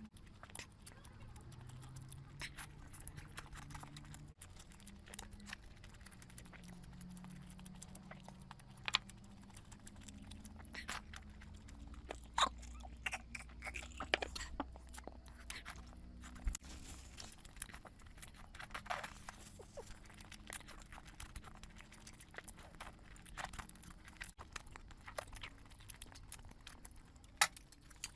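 Close-miked eating: chewing with many short, sharp mouth clicks, a few of them louder, over a faint low hum.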